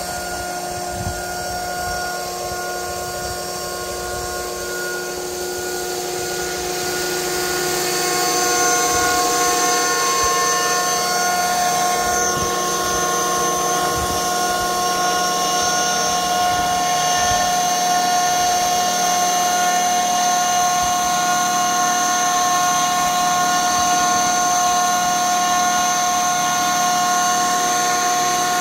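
Electric RC helicopter, a T-Rex 500 with a four-blade rotor head, running under power: a steady high whine from the motor and gears over the whir of the rotor. It grows louder and its tones shift about eight seconds in, then holds steady.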